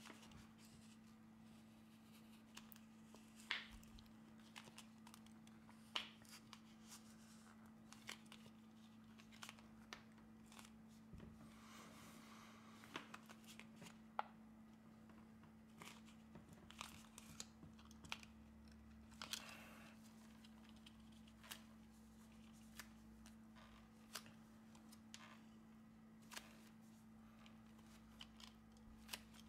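Near silence with faint, scattered scrapes and clicks of a plastic playing card being worked along the glued seam of a smartphone's frame, loosening the adhesive. A faint steady hum lies underneath.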